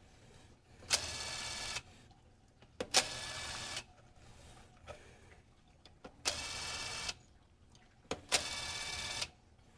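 Four short blasts of compressed air, each a bit under a second long. Each starts with a sharp click, holds a steady hiss and cuts off abruptly.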